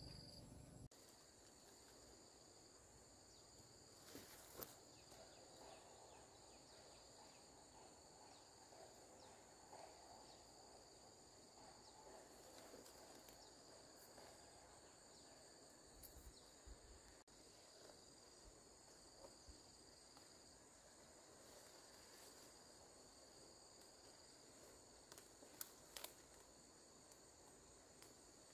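Faint insects trilling: one high steady tone, with a second, slightly lower trill that starts and stops every second or two. There are a couple of faint ticks in between.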